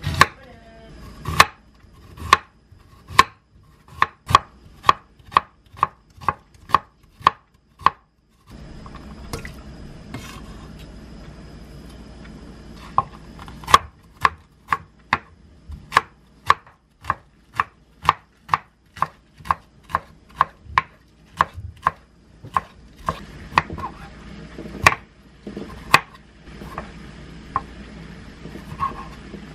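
Kitchen knife chopping vegetables on a wooden cutting board: thin slicing of napa cabbage, then quartering of cherry tomatoes. Each stroke is a sharp knock on the board, in steady runs of about two to three a second. There is a short break about eight seconds in, and the strokes come more sparsely near the end.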